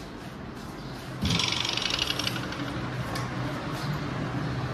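A dog eating dry kibble from a steel bowl. About a second in, a rapid buzzing rattle starts suddenly and lasts about a second, followed by a lower steady noise.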